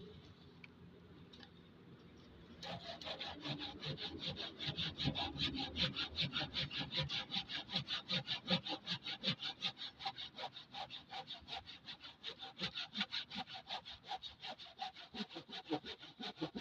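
Hand saw cutting through cedar in quick, even back-and-forth strokes, a few per second, starting about two and a half seconds in.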